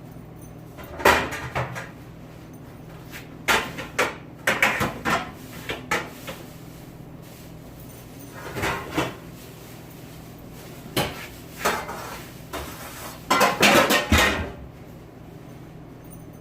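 Dishes, pans and utensils clattering as they are handled and set down, in irregular bursts with the loudest near the end, over a steady low hum.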